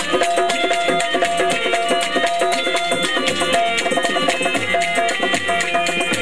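Dholak, a rope-tensioned two-headed hand drum, played fast with both hands in a dense rhythm of strokes. A melody instrument holds steady notes that step from pitch to pitch over it in an instrumental passage of Sindhi folk music.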